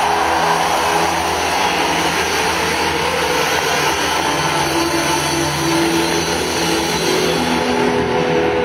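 Loud live band music from a concert, with held notes that change every second or two over a dense, noisy sound.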